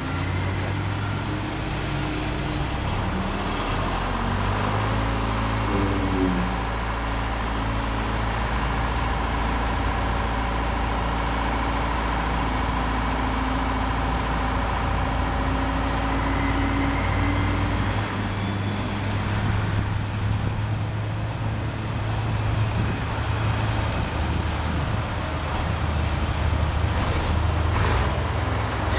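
Highway HHF truck-mounted pressure digger running: a steady engine drone with hydraulic whine, the pitch briefly rising and falling a few seconds in as the rig is worked, and the tone shifting about two-thirds of the way through.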